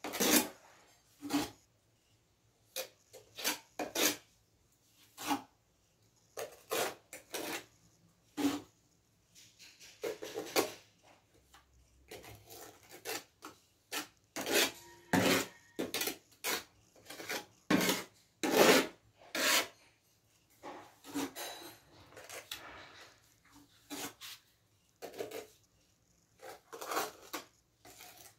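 Small steel trowel scraping and packing cement mortar into the gap around a floor drain pipe, in short irregular scraping strokes about once a second.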